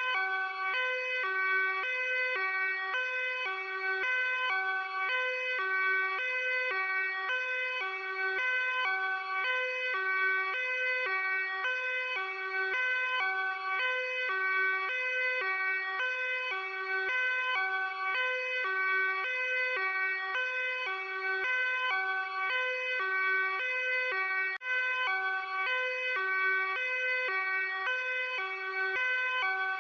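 Luxembourg police car's hi-lo two-tone siren, alternating steadily between a high and a low tone without a break.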